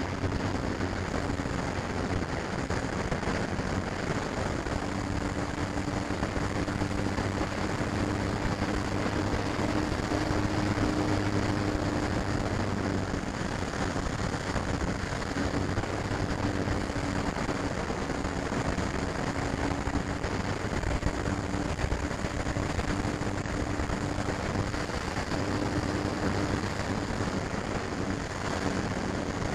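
FlyZone Cessna 182 RC model plane's electric motor and propeller running steadily in flight, heard from a camera mounted on the plane: a steady hum whose pitch shifts slightly a few times, under a rush of airflow noise.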